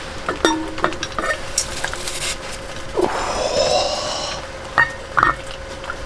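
Metal cookware and utensils knocking and clinking a few times, some strikes briefly ringing, with a scraping stretch about three seconds in. A steady hum runs underneath.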